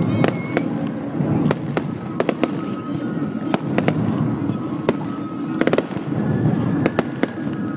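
Aerial firework shells bursting overhead: a string of sharp bangs at irregular intervals, several close together at times, over a steady low background din.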